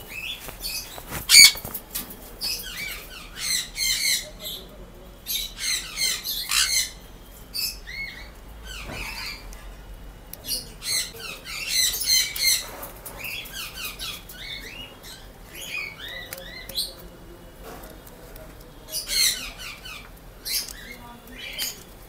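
Sun conures squawking in harsh, rapid bursts of shrill calls that come and go. A single sharp knock about a second in is the loudest sound.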